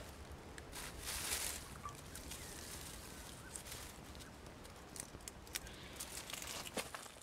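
Dry leaf litter rustling and crackling under a person's hands as leaves are gathered and spread, with a louder rustle about a second in and scattered small crackles after.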